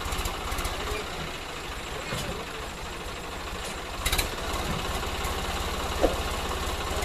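Swaraj 744 FE tractor's three-cylinder diesel engine running at a steady low speed, an even low chugging pulse, with two short sharp knocks about four and six seconds in.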